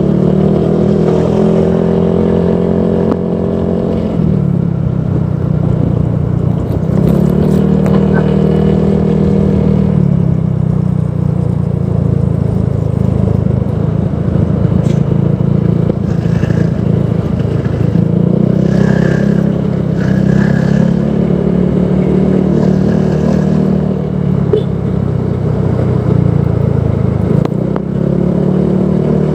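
Honda PCX 160 scooter's single-cylinder engine running through a Proliner Neo Silent aftermarket exhaust. It is revved up and held at a higher pitch, then drops back, several times: near the start, about seven seconds in, about eighteen seconds in and again near the end.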